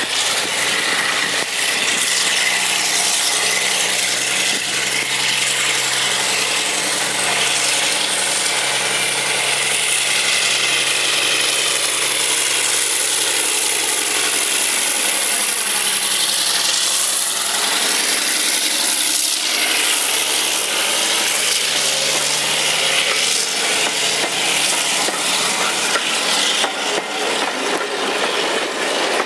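Class 52 diesel-hydraulic locomotive D1010 Western Campaigner pulling away under power with its twin Maybach diesel engines, loud and steady, with a high whine that slowly rises in pitch as it passes close by. Near the end its coaches roll past on the rails.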